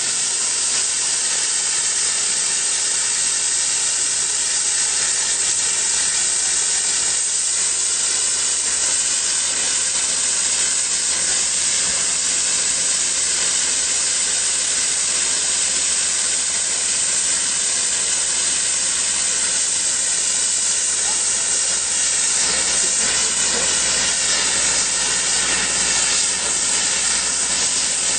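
Hypertherm Powermax plasma cutter's torch cutting metal: a loud, steady hiss of the arc and air jet, with a faint steady whine running through it.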